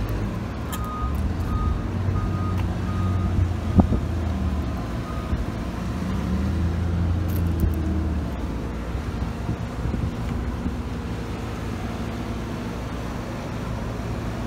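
Kubota BX23S compact tractor's three-cylinder diesel engine idling steadily. A high beep sounds about twice a second for the first five seconds or so, and there is a single sharp knock a little before four seconds in.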